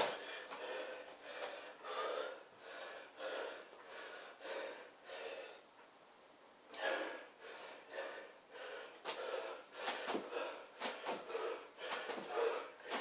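A man's heavy, fast breathing during jumping split lunges, with a hard breath about every two-thirds of a second. It eases off briefly around the middle, then picks up again.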